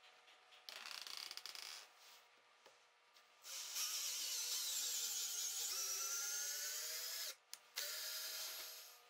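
Cordless drill running into a wooden block in bursts: a short run about a second in, then a longer run of about four seconds whose whine rises and shifts in pitch as it works, then a pause and a last short burst near the end.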